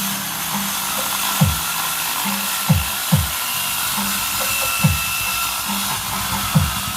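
Bass-heavy music played through a subscoop subwoofer cabinet for a sound check. Deep bass hits that drop sharply in pitch come every second or two over a steady bass line.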